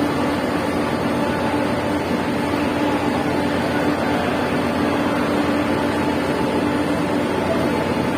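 Steady drone of a vehicle engine and its running noise, with a constant low hum that holds one pitch throughout.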